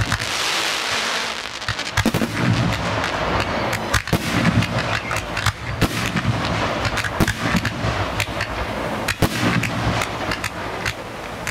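Fireworks cakes and roman candles firing in rapid volleys from ground level: a constant hissing crackle broken by many sharp bangs, several each second.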